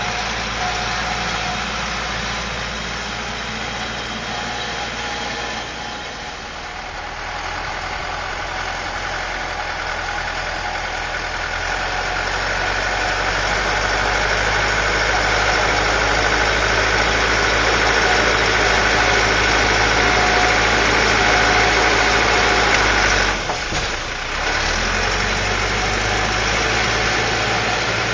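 Caterpillar 416C backhoe's turbocharged Perkins diesel engine running steadily, with a higher whine that grows louder about halfway through and a brief dip in level near the end.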